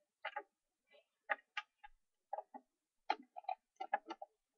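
Small plastic toys and accessories being handled, giving a string of irregular light clicks and clacks, about a dozen, some in quick pairs.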